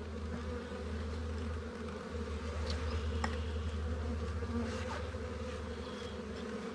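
A mass of honeybees from a freshly hived swarm buzzing steadily around the open hive, with a few faint clicks.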